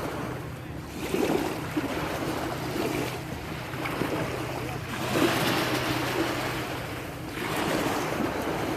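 Wind on the microphone and waves washing on open water, the rushing swelling and easing every couple of seconds, over a steady low hum.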